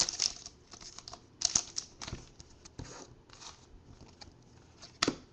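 Trading cards and their pack wrappers being handled on a desk: scattered light clicks, taps and short rustles as cards are slid and flipped, with a sharper click about five seconds in.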